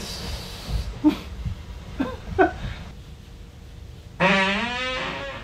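A fart captured by a sleep-recorder app and played back: a few short squeaky blips, then, about four seconds in, one long buzzing fart over a second long, its pitch wavering and sagging slightly.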